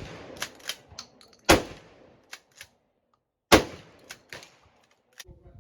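Smith & Wesson 916A 12-gauge pump-action shotgun firing twice, about two seconds apart, with its loud reports echoing. Sharp metallic clacks of the pump being worked fall between the shots.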